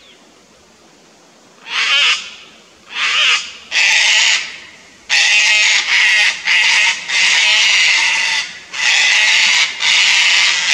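Sulphur-crested cockatoos screeching in alarm at a lace monitor near their nest. Three separate harsh screeches come first, then almost unbroken screeching from about halfway through.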